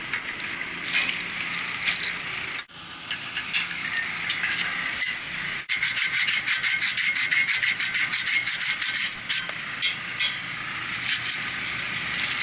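Sandpaper scrubbed back and forth on a pipe, cleaning it: irregular rubbing at first, then quick even strokes about seven a second from about halfway in, pausing and starting again near the end.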